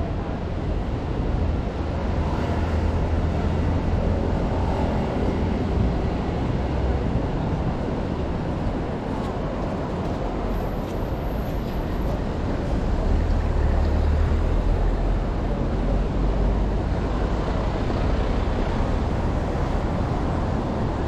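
Steady outdoor rush with wind buffeting the microphone. The low rumble swells a few seconds in and again just past the middle.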